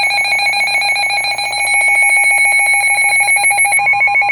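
Emergency alert alarm announcing a severe thunderstorm warning: a loud, shrill electronic tone that pulses rapidly and holds steady. A fainter steady tone joins it near the end.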